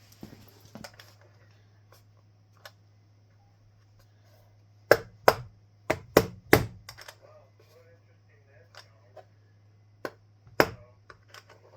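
Sharp knocks and clicks of a screwdriver and screws being handled while a speaker cabinet is unscrewed: a quick cluster of about five knocks midway and two more near the end, over a steady low hum.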